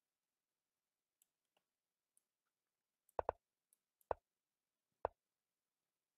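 Short sharp clicks of a computer chess board's move sounds as pieces are played: two close together about three seconds in, then single clicks about a second and two seconds later.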